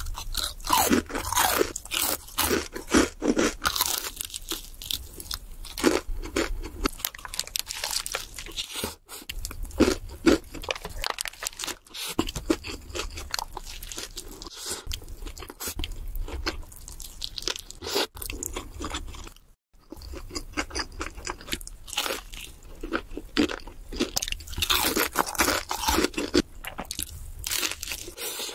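Close-miked crunching and chewing of crispy fried chicken: a dense run of sharp, crackly bites and chews, with a few brief pauses.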